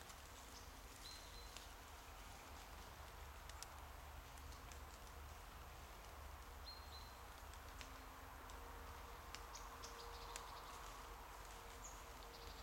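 Near silence in woodland: faint scattered rustles and ticks, fitting a dog's paws in dry fallen leaves, over a low steady rumble. Twice, about a second in and again about seven seconds in, a short high bird call.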